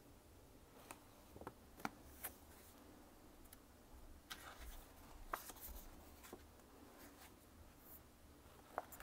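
Near silence with faint paper rustles and a few light ticks as a picture-book page is handled and swapped on its stand.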